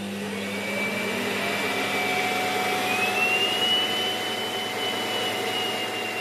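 Roborock Auto Empty Dock's suction motor spinning up and then running steadily, pulling the dust out of the robot vacuum's bin. Its whine climbs through the first second, then holds as a loud rush with a high whine, which steps up a little about three seconds in.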